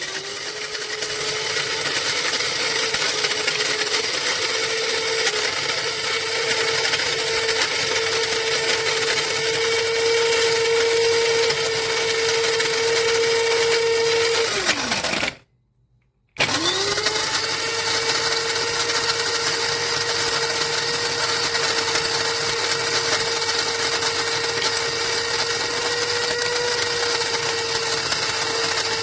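Electric blade coffee grinder's 200 W motor running with a steady whine. About 15 s in it winds down and stops, then about a second later it starts again and runs steadily on.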